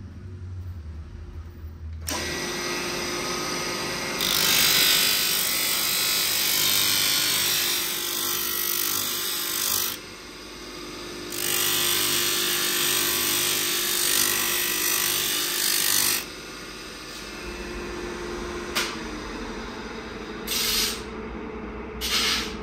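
Electric motor with a sanding disc starts running about two seconds in. A small brass piece is pressed against the spinning disc in two long spells of loud grinding hiss, then the motor runs on alone with two short touches near the end.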